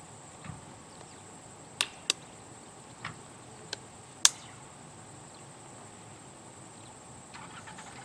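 Five short, sharp clicks in about two and a half seconds, the last the loudest: glass-reinforced nylon wire clips being snapped onto a Gallagher fibreglass insulated line post.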